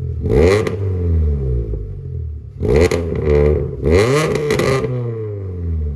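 Lada Priora's four-cylinder engine revved in several quick blips, the pitch rising and falling back each time, with exhaust noise flaring at each peak.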